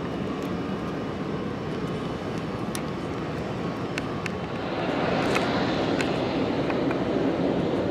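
Jet airliner's engines during a takeoff, heard as a steady rushing noise that swells louder and brighter a little past halfway.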